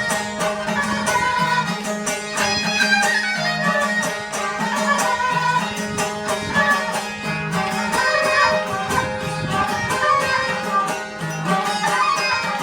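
Background music: a traditional folk tune with a bowed string melody over a steady drone and a regular beat.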